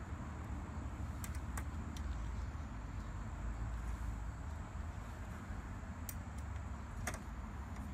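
Steady low rumble with a few light metallic clicks as a screwdriver drives small screws into a steel cabinet door's hinge plate.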